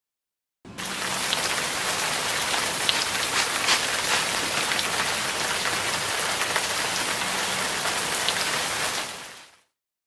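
Steady rain, a dense even hiss with fine scattered drop sounds, starting abruptly under a second in and fading out about a second before the end.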